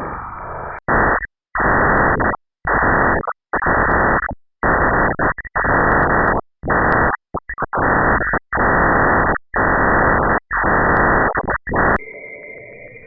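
Radio emissions from space converted into sound: choppy bursts of static-like hiss, about a dozen of them, each starting and stopping abruptly.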